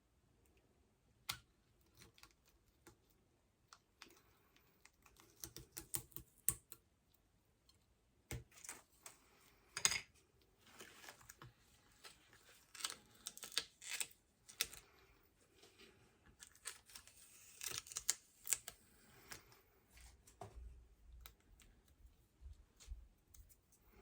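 Irregular light clicks and taps with short scratchy runs from small hand tools working on a smartphone during a screen repair. A low hum comes in near the end.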